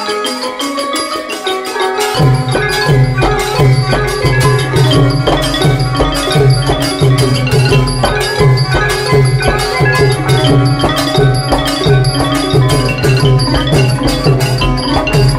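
Thai pi phat mai khaeng ensemble playing a fast, dense melody on wooden xylophones and gong circles. A low drum part comes in about two seconds in.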